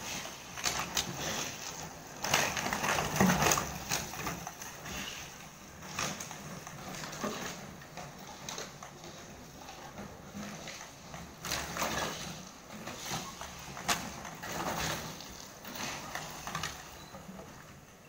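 Empty plastic bottles tied to the back of a moving mobility scooter, knocking and crackling against each other in irregular bursts. The loudest stretch is about two to four seconds in.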